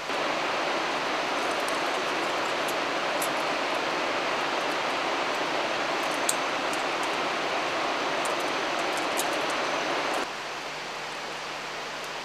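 Steady rushing outdoor noise with a few faint light clicks scattered through it; it cuts off suddenly about ten seconds in.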